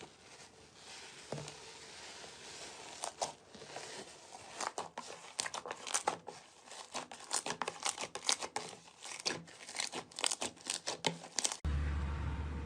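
Slime being squeezed and worked by hand, making a rapid run of sharp crackling pops. Near the end the sound cuts abruptly to a steady low hum.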